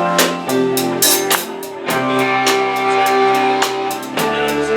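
Live band playing: long, held guitar notes over bass, with a drum beat of cymbal and snare hits that thins out in the middle.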